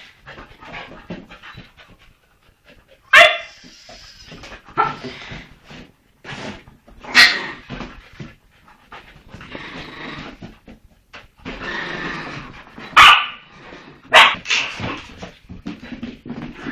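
Dog barking sharply four times, once about three seconds in, again near seven seconds, then twice in quick succession later on, with quieter dog noises between the barks.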